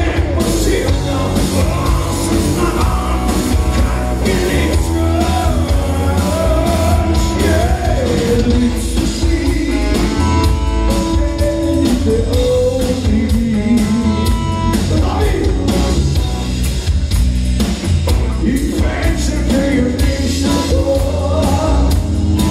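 Live rock band playing: a man singing over electric guitars, bass guitar and a drum kit, with steady drum strikes throughout.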